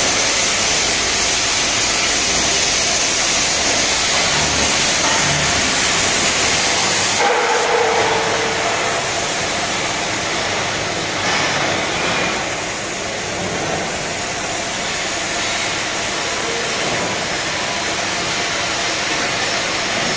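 TIG welding on a stainless steel shell with purging gas flowing: a steady hiss that loses some of its highest part about seven seconds in.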